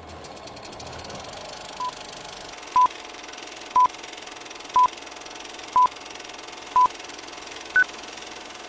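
Film-leader countdown sound effect: six short beeps at one pitch, about one a second, then a seventh higher-pitched beep near the end, over a steady hiss.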